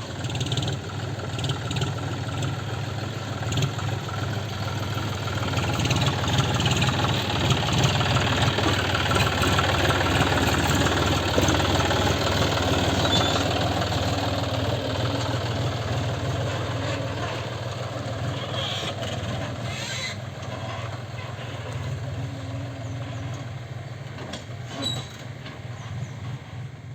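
Heavy diesel machinery running at work. The engine drone swells louder through the middle stretch, and a few short knocks come about two-thirds of the way through.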